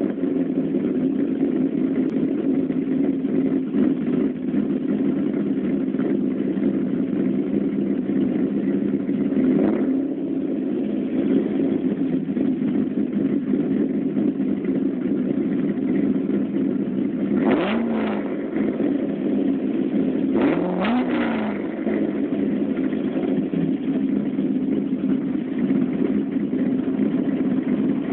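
C5 Corvette Z06's LS6 V8, fitted with a VRX5 camshaft and an open exhaust with the cats removed and B&B Bullet mufflers, idling with a choppy cam lope just after a semi-cold start. There is a small throttle blip about ten seconds in and a few quick revs in the second half, with a double blip near the end.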